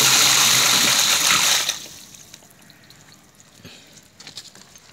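Rainwater gushing out of the bottom of a PVC downpipe as the water standing in the pipe drains after its valve is opened. The rush cuts off sharply about two seconds in and dies away to faint drips.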